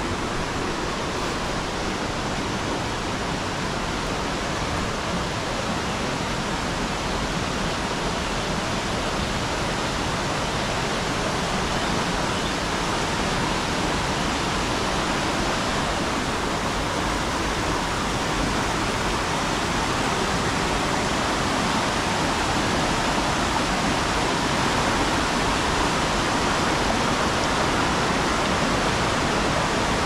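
Steady rush of flowing water, growing slowly louder.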